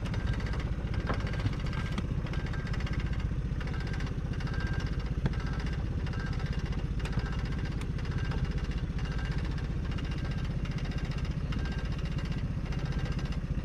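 A small boat's outboard motor idling steadily, with no change in speed.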